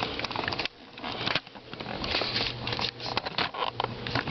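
Handling noise close to the microphone: rustling with scattered clicks and knocks as the camera is set down. It goes briefly quieter about a second in.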